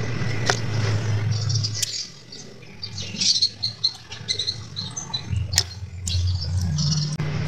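Light clicks and taps of hands fitting a wire terminal inside a battery charger. Birds chirp in the background over a low steady hum.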